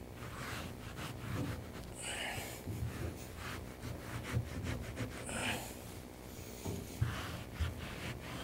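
Jute carpet padding being rolled down and pressed by hand onto a glued car floor: soft rubbing with scattered muffled bumps, and two short breaths about two and five seconds in.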